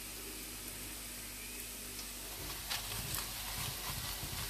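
Besan roti sizzling on a hot tawa griddle, spread with butter. From about two and a half seconds in, a spoon scrapes and clicks against the roti and pan.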